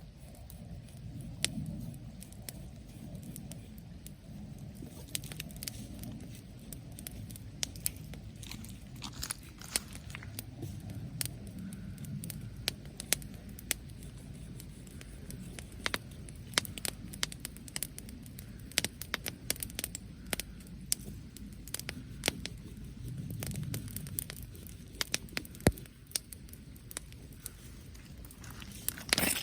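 Wood bonfire crackling, with frequent sharp pops at irregular intervals.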